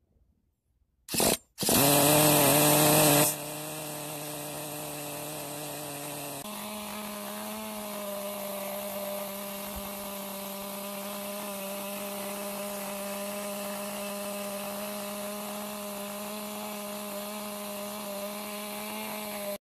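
Traxxas Nitro Rustler's small two-stroke glow-plug nitro engine running, loud for the first couple of seconds after it comes in about a second in, then a steadier, quieter drone. Its pitch steps up slightly about six seconds in and holds steady until it cuts off suddenly near the end.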